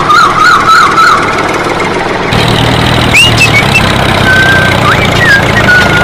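Tractor engine running steadily. Its low hum drops away for the first couple of seconds, then comes back. A warbling whistle sounds in the first second, and a few short rising whistles come later.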